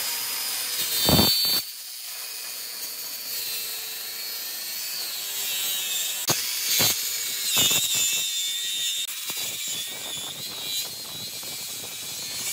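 Electric circular saw running and cutting through a thick plank of reclaimed boat wood, a steady high whine with cutting noise, broken by a few short knocks along the way.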